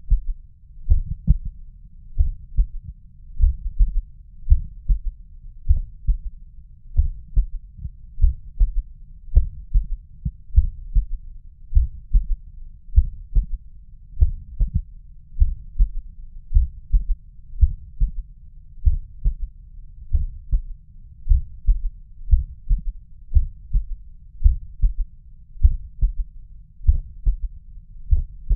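A human heartbeat heard through a stethoscope over the mitral valve area with the body lying on the left side: steady low lub-dub thumps repeating evenly, with an added third heart sound (S3) after the second sound of each beat.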